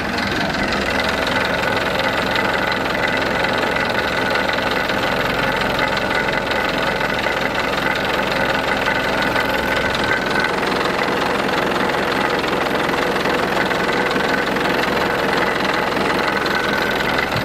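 Inboard marine diesel engine idling steadily, heard close with the engine hatch open. It is running out of the water on cooling water fed in through a hose, just after an oil change.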